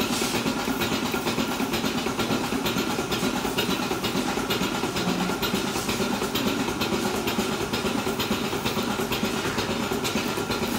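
Goat milking machine running: a steady hum and hiss from the parlour's vacuum system, with a regular clicking pulse.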